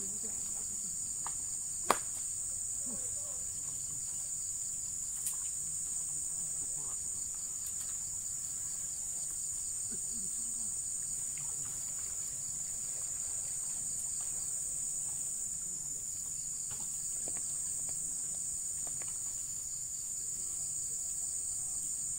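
Steady, high-pitched chorus of insects that keeps going without a break, with one sharp click about two seconds in.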